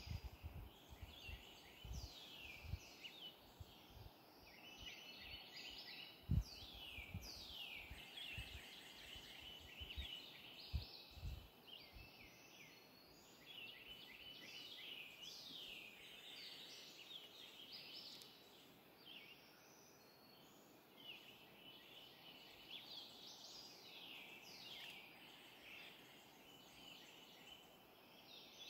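Morning chorus of many birds calling and singing at once, full of quick downward-sweeping notes that overlap without pause. A few low thumps come in the first twelve seconds.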